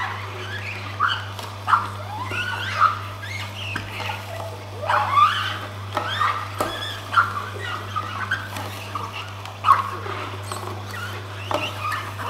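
Oscar DA1000 horizontal single-auger slow juicer crushing apple pieces. A steady low motor hum runs under irregular short squeaks and chirps, the sound of apple skin being squeezed in the juicing chamber, which is normal for this juicer.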